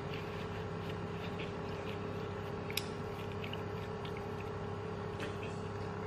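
Steady low electrical hum, with faint small clicks and one sharp glassy clink about three seconds in as a glass water jug is picked up to drink from.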